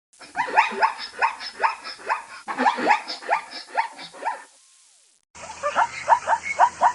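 Zebra calling with its barking, yelping bray: rapid runs of sharp calls, about four a second, in two bouts. After a short silence about five seconds in, another run of calls starts over a steady hiss.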